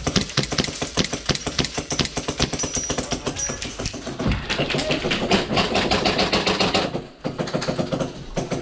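Airsoft guns firing rapid clattering strings of shots, stopping about seven seconds in.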